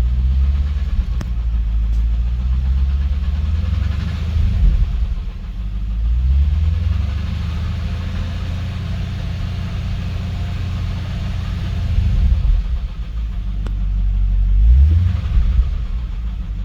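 A 2012 Cadillac CTS-V's supercharged 6.2-litre V8 running, its engine note rising and falling several times as the revs change.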